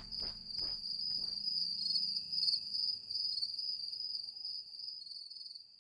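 Crickets trilling steadily in one high continuous chirr, fading out at the very end. The last beats of a music track die away in the first second or so.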